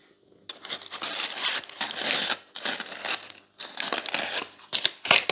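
Paper seed packet crinkling as it is handled, in a run of uneven rustles starting about half a second in.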